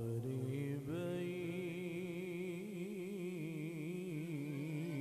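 Male Quran reciter's voice drawing out a long melodic phrase of tilawat through a microphone, the pitch wavering in an even vibrato; a new phrase begins about a second in.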